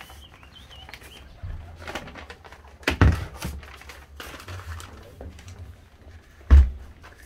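Footsteps and handling knocks in a small steel wheelhouse. There are two heavier low thumps, about three seconds in and near the end, the second the loudest, and a thin bird chirp in the first second.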